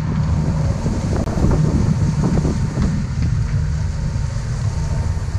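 Wind buffeting the microphone aboard a yacht, with a steady low hum underneath.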